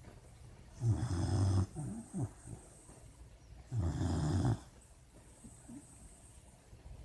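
Sleeping puppy snoring: two loud snores about three seconds apart, each lasting about a second, with a few short snuffles just after the first.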